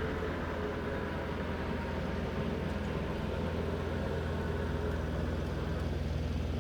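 Steady low rumble of a road vehicle's engine running.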